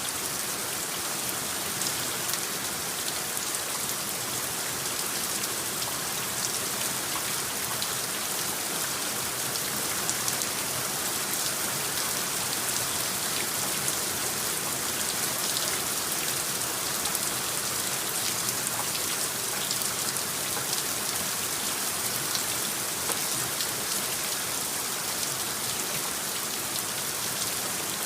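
Steady rain: an even hiss made of countless small drop ticks, from a rain soundscape overlay.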